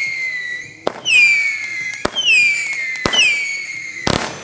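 Whistling fireworks going off in quick succession. Each shrill whistle drops in pitch and is cut off by a sharp bang, about once a second, with four bangs in all.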